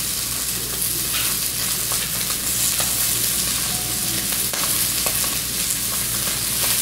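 Salmon nuggets sizzling as they fry in a pan with a little bacon grease and cooking spray: a steady hiss with a few faint pops.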